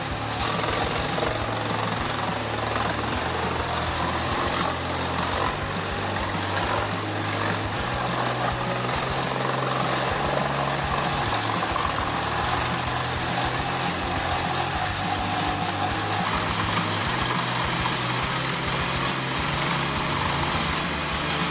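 Industrial wood chipper running while feeding and chipping logs: steady engine noise mixed with the spinning blades and the crunching of wood. The sound shifts a little about sixteen seconds in.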